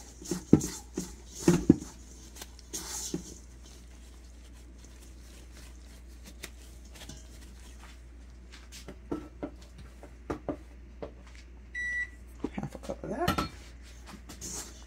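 Gloved hands squeezing and crumbling a too-doughy butter, flour and pudding-mix crumble in a stainless steel bowl: soft squishing with scattered light knocks and scrapes against the bowl, quiet for a few seconds in the middle. Near the end a kitchen appliance gives a single short electronic beep.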